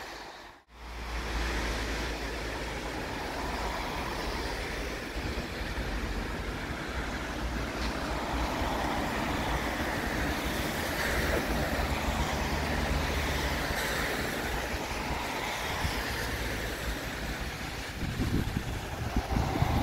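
Steady road traffic noise from cars passing on the street beside the tram tracks, after a brief dropout just under a second in. Wind buffets the microphone near the end.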